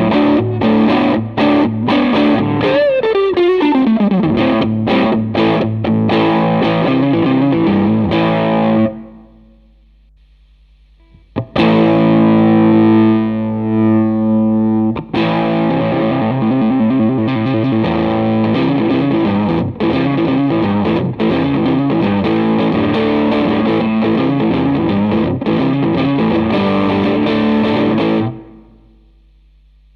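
Electric guitar, a Fender Stratocaster, played through a Line 6 Helix amp-and-cab model with a distorted tone. Riffs and chords, with a note sliding down in pitch about three seconds in. The playing breaks off about nine seconds in, starts again a couple of seconds later with ringing chords, and stops shortly before the end.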